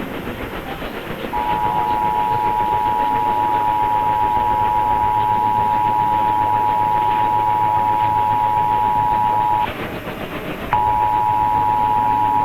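Emergency Alert System two-tone attention signal: two steady tones sounding together, received over AM radio with its hiss and hum. The tone starts about a second and a half in, breaks off for about a second near the end, then starts again.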